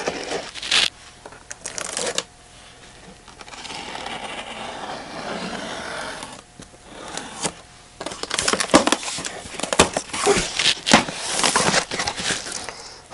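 Clear packing tape being peeled off a cardboard box: short crackly rips at first, then a long steady tearing hiss as a strip is pulled slowly across the top. From about two-thirds of the way in, the cardboard flaps are opened and the plastic wrapping inside rustles and crackles in quick sharp bursts.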